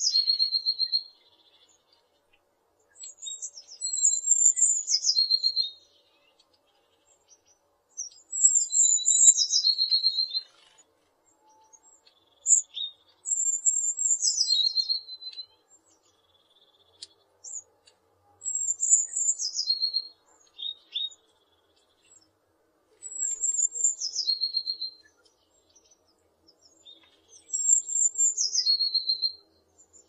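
Eurasian blue tit singing: the same short song phrase about seven times, one every four to five seconds. Each phrase opens with a few very high, thin notes and drops into a lower, fast trill.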